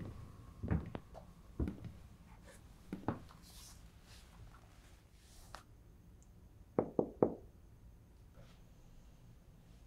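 Scattered soft knocks and thuds, then three quick knocks close together about seven seconds in.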